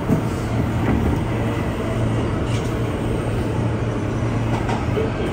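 Alstom R160A subway train on the New York L line running along the track, heard from inside the car: a steady rumble of wheels on rail with a constant low hum from the traction motors.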